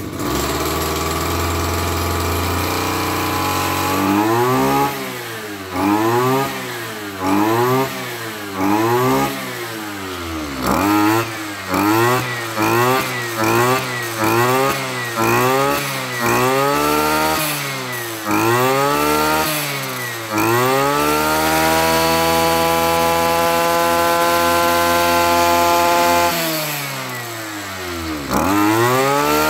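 Tanaka 27cc two-stroke brush cutter engine revved in about fifteen quick blips from idle to high speed and back, then held at full speed for several seconds before dropping to idle and revving up again near the end. It runs very smoothly at high revs.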